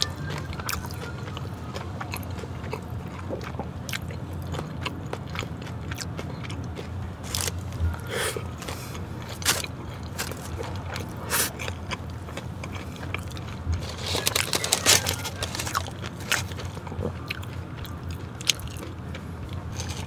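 Close-miked crunching bites and chewing of crispy Korean fried chicken, irregular crunches with a dense run of loud ones about three-quarters of the way through, over a steady low hum.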